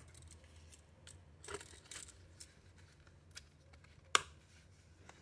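A fixed-blade knife and its leather sheath being handled: scattered leather scrapes and small clicks, then one sharp click about four seconds in as the sheath's snap fastener is pressed shut.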